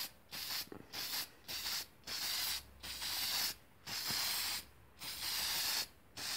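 Aerosol can of Rust-Oleum auto enamel spraying in about eight short hissing bursts, each under a second, with brief gaps between them, as the nozzle is swept back and forth to lay on a second coat of paint.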